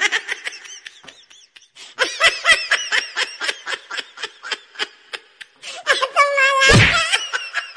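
Someone laughing in quick repeated bursts, then a longer drawn-out vocal sound near the end, with a low thump about seven seconds in.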